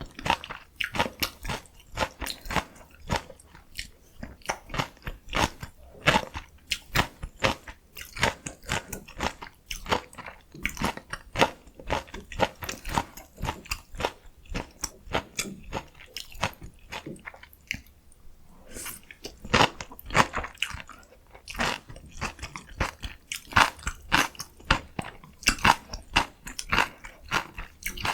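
Close-miked eating: a person biting, crunching and chewing food in a dense run of sharp, crackly crunches, with a brief lull a little past halfway.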